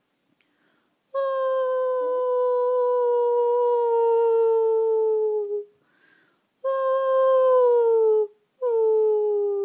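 Small poodle howling: after about a second of silence, three long drawn-out notes, each sliding slowly down in pitch. The first is the longest at about four seconds, and the last is still going at the end.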